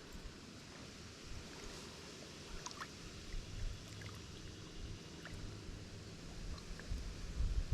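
Faint river water around a kayak, with a low rumble and a few small scattered clicks; the rumble swells briefly near the end.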